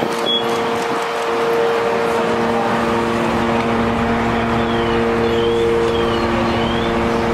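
Fire truck's diesel engine running steadily beside the aerial ladder, a loud droning hum of several steady tones, a lower tone joining about a second and a half in.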